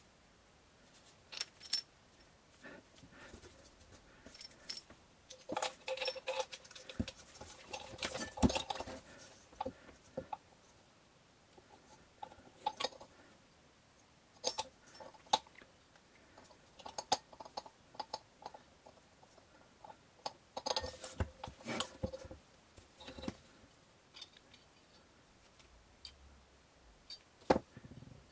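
Small metal parts and tools being handled: irregular clicks, clinks and jangles, busiest from about six to nine seconds in and again around twenty-one seconds in.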